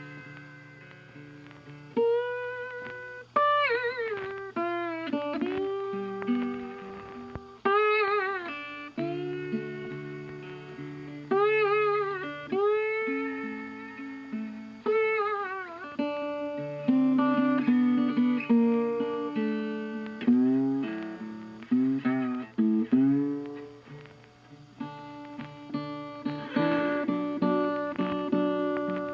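Jazz background music: a guitar plays a melody with bending, sliding notes over lower accompanying notes.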